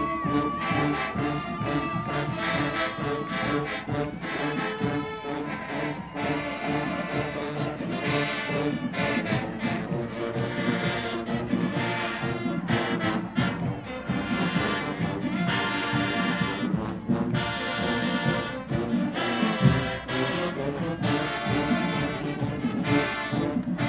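A marching band playing: massed brass, trombones among them, over a steady drum beat.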